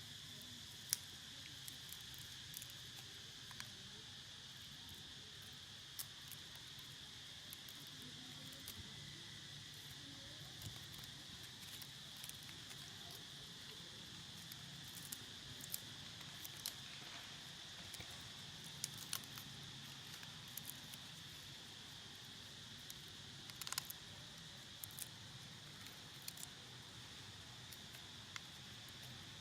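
Faint, steady high-pitched insect drone, like crickets or cicadas, with scattered light clicks and taps throughout.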